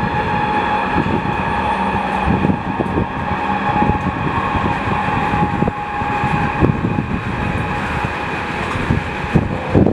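Iron ore train's steel hopper wagons rolling past on the rails: a steady heavy rumble broken by irregular clacks and knocks of wheels over the track. A steady high whine runs along with it and stops about two-thirds of the way through.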